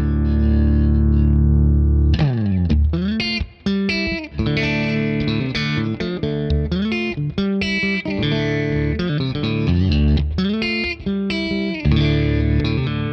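Electric guitar played through a JHS Whitey Tighty compressor with some dry signal blended back in, into a Fender '65 Deluxe Reverb amp. A held chord rings out, then slides down about two seconds in, followed by picked chords and single notes, and another chord rings near the end.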